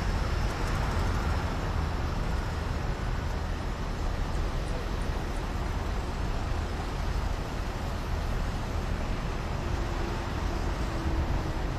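Steady low rumble and hiss of outdoor background noise, with no distinct events standing out; a faint hum rises briefly near the end.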